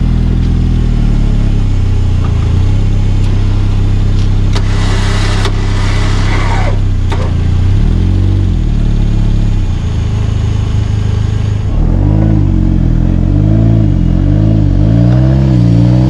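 Off-road 4WD truck's engine running under load, then revved hard in repeated rises and falls through the second half. A rush of hiss lasts about two seconds, starting some four and a half seconds in.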